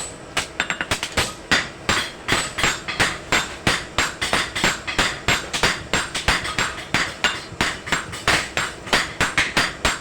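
A blacksmith's hammer beating a dagger blank on an anvil: quick, uneven blows, about four a second, with a metallic ring between strikes.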